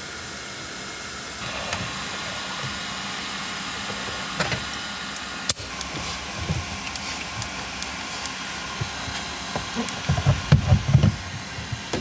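Compressed air hissing steadily as it is blown into a car's air-conditioning unit to dry the freshly washed evaporator, with a few clicks and low thumps of handling near the end.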